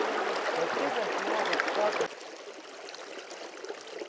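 River water rushing steadily. It drops abruptly to a fainter rush about two seconds in.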